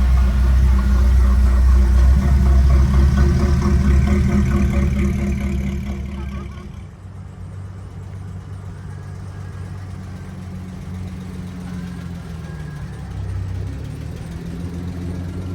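A car engine's loud, low rumble that fades away about six seconds in, leaving a quieter, steady engine hum.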